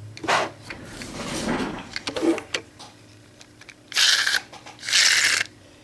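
Plastic Beyblade string launcher ratcheting in two bursts of about half a second each, starting about four seconds in, after a few seconds of quieter handling.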